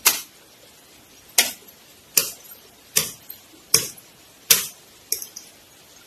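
About seven sharp knocks of blows struck on a wooden stick, a little under a second apart, each short and crisp.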